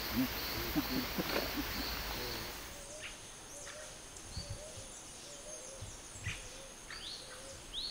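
Tropical forest birds and insects: a low call repeating about twice a second, short sharp rising chirps, and a steady high insect buzz. Faint voices and a repeated high chirp sit over it in the first three seconds.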